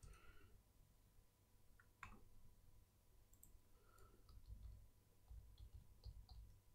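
Faint, scattered clicks of a computer keyboard and mouse as an address is typed and entered, a few keystrokes over several seconds, against near-silent room tone with a faint steady hum.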